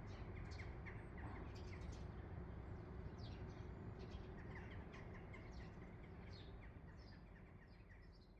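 Small birds chirping in quick, short calls over a faint steady low rumble, all fading out near the end.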